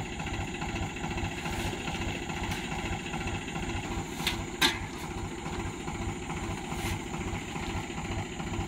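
Swaraj 735 FE tractor's three-cylinder diesel engine idling steadily, with a couple of short sharp clicks about halfway through.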